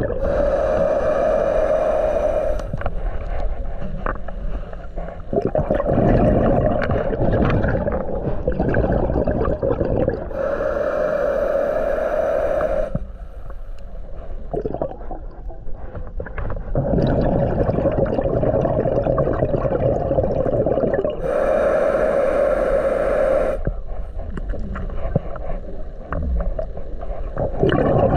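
Scuba diver breathing through a regulator underwater. There are three slow breaths about ten seconds apart: each is a hissing, whistling inhale through the regulator, followed by a long gurgling rush of exhaled bubbles.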